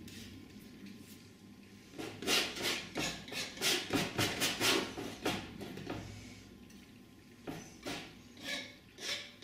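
Painting knife scraping and dabbing oil paint onto a stretched cotton canvas: a run of short quick strokes, about three a second, then slower single strokes about every half second near the end.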